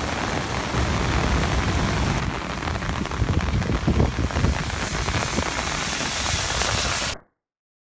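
Rushing floodwater churning through a concrete drainage channel, then heavy rain pouring on flooded ground, louder and gustier in the middle. The sound cuts off suddenly about seven seconds in.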